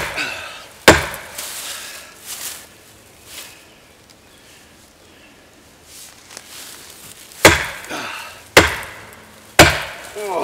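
Overstrikes of a Fiskars 28-inch chopping axe: the axe's handle behind the head slams against the trunk of a dead sugar maple in sharp wooden whacks. One strike comes about a second in, then after a pause three more come about a second apart near the end.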